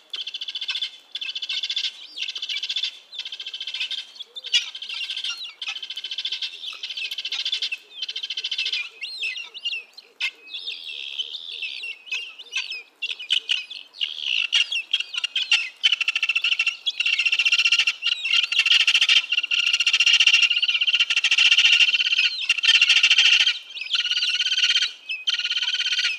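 Vulturine guineafowl calling repeatedly: a run of high calls, about one a second with short gaps between, growing louder about halfway through.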